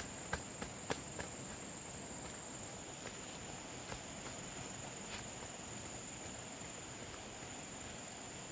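Steady high-pitched insect drone with an on-and-off higher chirping over outdoor background noise, and a few sharp clicks or taps in the first second or so.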